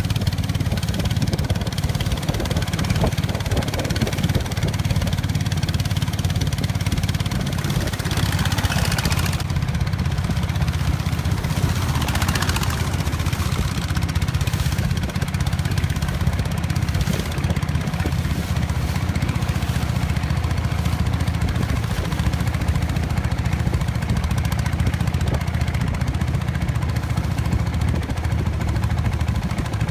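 Long-tail boat's engine running steadily at cruising speed, with water rushing past the hull. Twice, about 8 and 12 seconds in, a rush of higher noise swells briefly.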